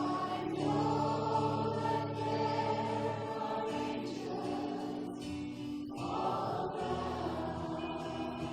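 Church worship music: voices singing over sustained instrumental chords, the harmony shifting about three and six seconds in.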